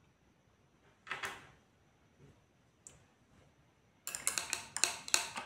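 Painting tools being handled off to the side: a short swish about a second in, a single click near three seconds, then a quick run of clicks and clinks near the end as the brush is put to the paint pots or water glass.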